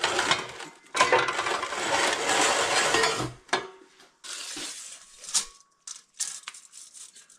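Pieces of steel stock clattering and clinking as they are handled: a dense jumble of clinks for the first three seconds, then a few separate clanks, one of which rings briefly.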